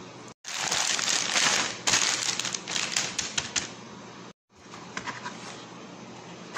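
Plastic bag of tortilla wraps crinkling and crackling as it is handled: a dense run of sharp crackles for about three seconds, then a few fainter crackles.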